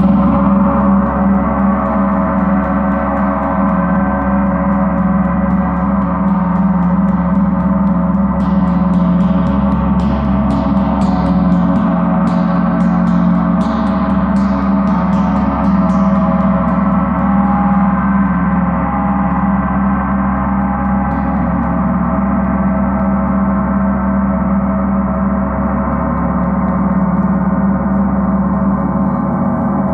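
A 38-inch Paiste Earth Year planet gong, tuned to C sharp (136.1 Hz), played with soft felt mallets. It gives a dense, sustained wash of many overlapping tones. A run of light, quick mallet strokes from about a quarter to halfway through keeps it sounding.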